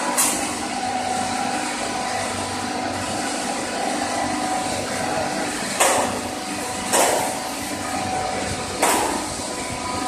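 Red-hot carburised load being lowered into an oil quench tank: a steady machinery hum with four sudden bursts of rushing noise, one just after the start and three more in the second half, as the quench oil flares up around the hot parts.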